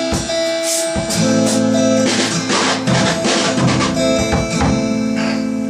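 A band playing an instrumental passage: amplified acoustic guitar chords with drum kit hits.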